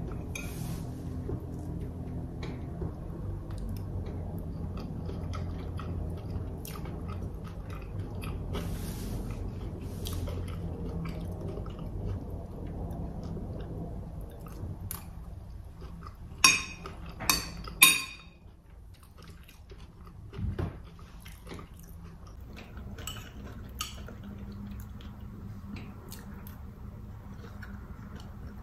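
Close-up eating sounds: chewing of cauliflower fried rice, with cutlery clicking and scraping on the plate. About two-thirds of the way through, three sharp ringing clinks of metal on the plate come in quick succession and are the loudest sounds.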